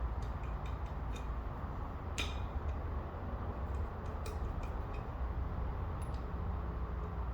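Scattered light clicks and taps of bolts and hand tools being handled while fitting a new drive-shaft coupler, over a steady low rumble.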